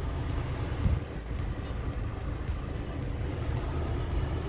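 Steady low rumble of a car heard from inside the cabin, with a brief thump about a second in.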